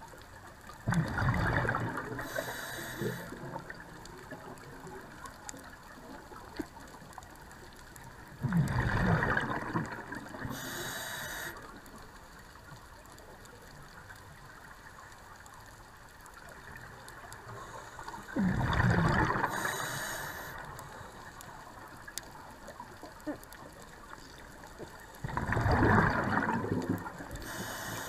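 Scuba regulator breathing heard underwater: four bubbling exhalation bursts, each about a second and a half long and some seven to ten seconds apart, each followed by a short, thin hiss, over a low steady underwater hiss.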